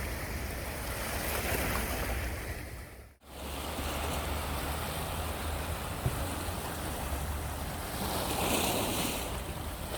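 Sea waves washing ashore, swelling about a second and a half in and again near the end, over a steady low rumble. The sound cuts out abruptly for a moment about three seconds in.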